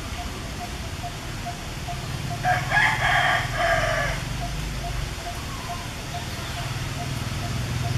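A single loud, pitched animal call lasting about a second and a half, starting about two and a half seconds in.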